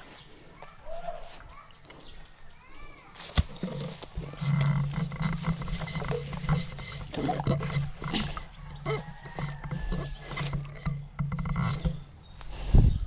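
Leaves and stems rustling and crackling as someone walks through leafy undergrowth, with a low steady hum from about four seconds in until near the end.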